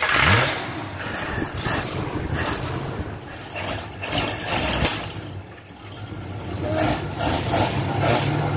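Carbureted car engine idling with the air cleaner off while aerosol cleaner is sprayed in short hisses around the carburetor and vacuum hoses to hunt for a vacuum leak. The engine speed rises briefly at the start and again near the end; the leak turns out to be a cracked vacuum hose shooting air out.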